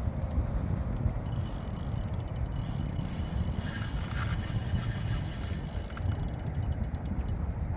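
Authority 5500 spinning reel clicking rapidly, in runs that thicken near the end, while a hooked Wels catfish pulls against the bent rod. A steady low rumble sits underneath.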